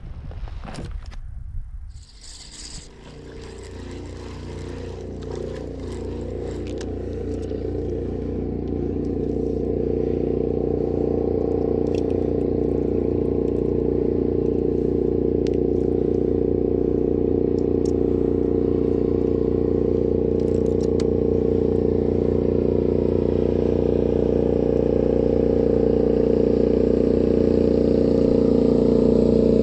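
An engine starts running about two seconds in, after a few clicks and scrapes of handling, and holds a steady drone that grows louder over the next several seconds.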